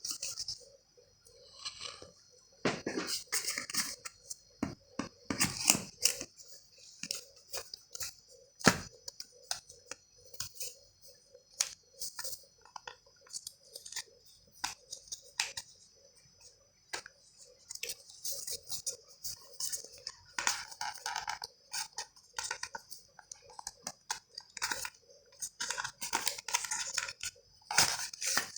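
A phone's cardboard retail box and its paper and plastic packaging being handled while it is unpacked: scattered light clicks, scrapes and rustling.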